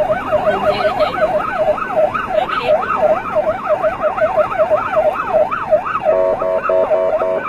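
Vietnamese police siren sounding during a chase. It gives a rapid up-and-down yelp, and about six seconds in switches to a choppy, stepped two-tone pattern.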